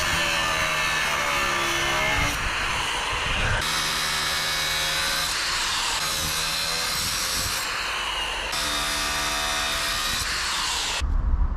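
Angle grinder with an abrasive cut-off disc cutting through steel rebar: a loud, steady grinding screech over a motor whine whose pitch dips as the disc bites and recovers between cuts, over several cuts in a row. It stops suddenly near the end.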